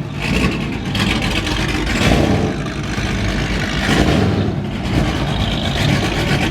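Cammed 6.4-litre HEMI V8 running with a choppy, uneven idle and a few brief swells in level.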